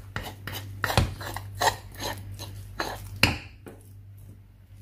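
A metal spoon scrapes thick ga'at porridge dough off a wooden stirring stick and against the pot: a string of scrapes and knocks, the sharpest about a second in and just past three seconds, then fainter.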